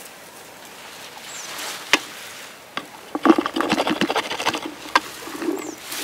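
Wild blueberries tipped out of a wooden berry-picking rake with metal tines into a plastic jug: a pattering rattle of about a second and a half near the middle. A few sharp knocks of the rake come before and after it.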